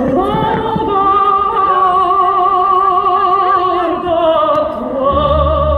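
Operatic singing with vibrato, long held notes over orchestral music. A low rumble joins near the end.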